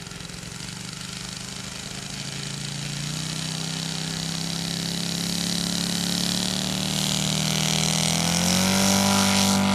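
Enya 240 V-twin glow engine of a scale RC Albatros D.Va model running, its note climbing steadily in pitch and growing louder from about three seconds in as the throttle opens for take-off.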